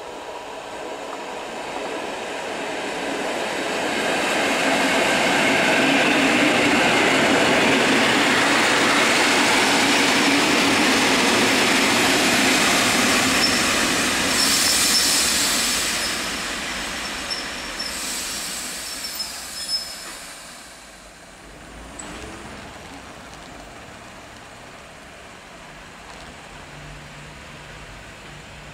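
EN57 electric multiple unit running into the station, its wheels and motors growing loud as it comes close and passes. As it slows, high-pitched brake and wheel squeals come and go, then it goes quiet with a low steady hum as it stands at the platform.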